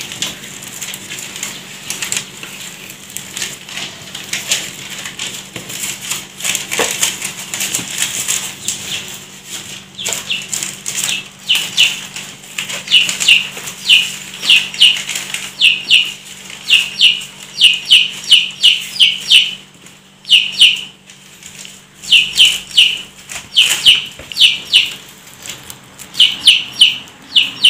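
Clothes and their plastic wrapping rustling as garments are handled out of a cardboard box. From about eleven seconds in, a bird's short falling peeps repeat several times a second in runs with brief pauses, and these are the loudest sound.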